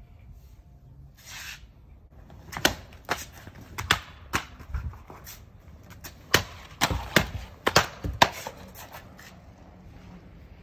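Japanese sword slicing through a rolled tatami-omote mat target in quick successive cuts: a group of about four sharp cutting snaps, a short pause, then about five more.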